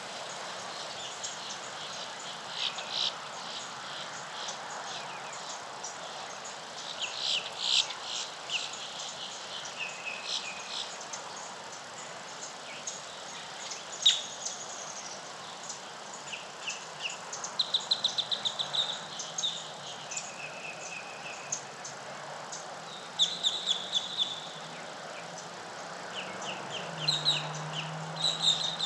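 Birds chirping and calling at dawn: many short, repeated notes and a few quick trills over a steady background hush. A low hum comes in near the end.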